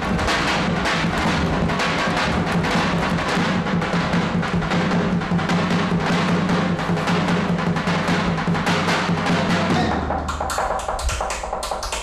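Live drumming on large double-headed drums: a fast, dense beat over a steady low drone. About ten seconds in, it changes to sparser, sharper strikes.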